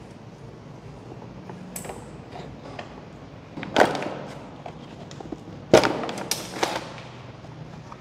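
Clicks and knocks of metal parts being handled on a bare motorcycle rear subframe as a cable is worked free. Two louder knocks stand out, about two seconds apart in the middle, among smaller clicks.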